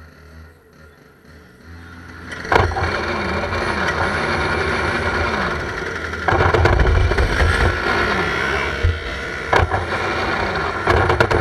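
IAME X30 125cc two-stroke kart engines starting up and revving in the grid, loud from about two and a half seconds in, with a low rumble, rising and falling engine pitch and a few sharp knocks.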